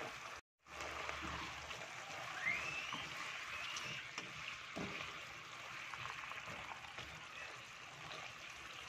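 Chicken feet simmering in sauce in a wok, a steady bubbling hiss, while a spatula stirs them with a few scrapes and knocks against the pan.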